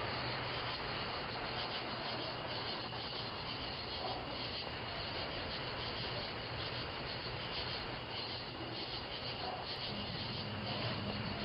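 Steady rushing outdoor background noise, heard through a doorbell camera's microphone, with no distinct events.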